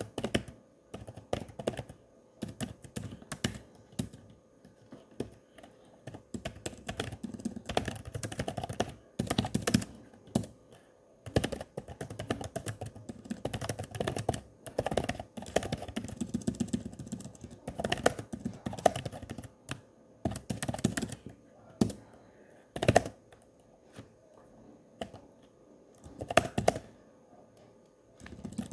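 Typing on a keyboard: quick runs of key clicks broken by short pauses.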